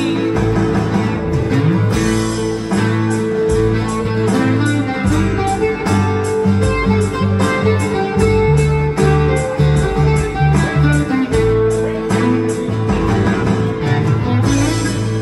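Two acoustic guitars played through a PA, playing a rock instrumental passage with no singing, in a steady fast rhythm.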